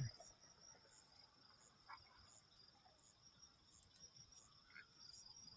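Near silence with faint crickets chirping in a steady, high, pulsing trill.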